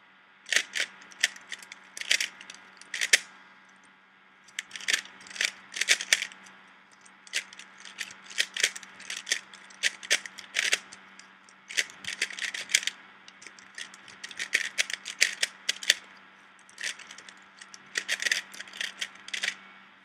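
Rubik's Cube being turned fast by hand while being solved: the plastic layers clack in quick runs of turns, with a couple of brief pauses.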